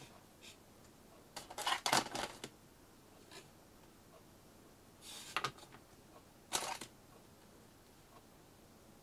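Small accessories and packaging handled and set down on a wooden desk: short clusters of rustling and light clicks, the loudest about 2 s in, with shorter ones around 5 and 6.5 s.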